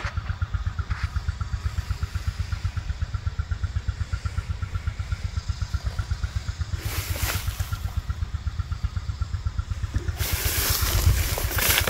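A small engine running steadily, a low regular beat of about six pulses a second. A broad rushing noise comes in briefly about seven seconds in and again for the last two seconds.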